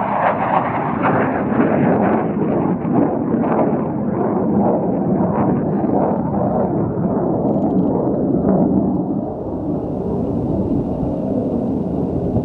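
Fighter jet flying past with a loud, steady jet rumble. The sound dulls over the last few seconds as the jet draws away and the higher part dies out.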